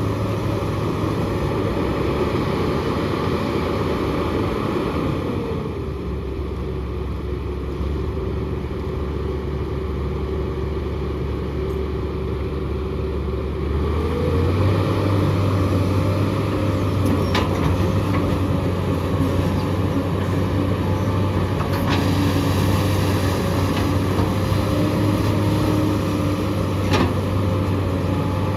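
SANY SY215 excavator's diesel engine running under work. The engine speed drops about five seconds in and comes back up about nine seconds later. Three sharp knocks sound in the second half.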